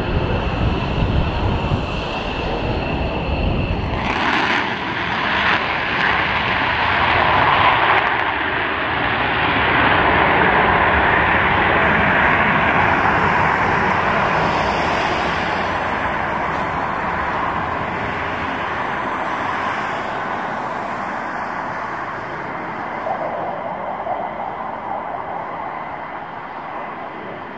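Single Pratt & Whitney F135 turbofan of an F-35A Lightning II fighter jet roaring as the jet flies away and climbs. It is loudest about a third of the way in and fades steadily toward the end. For the first four seconds a deeper rumble with a faint steady whine is heard, which breaks off abruptly.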